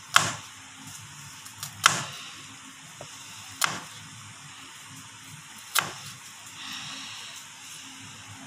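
Chef's knife chopping through an onion and striking the cutting board: four sharp knocks, spaced about two seconds apart.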